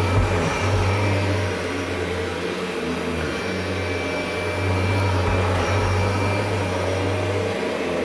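A 1991 Kirby Generation 3 upright vacuum running steadily with a constant motor hum and whine, its low hum dipping briefly a few times as the nozzle is pushed and pulled across a carpet rug.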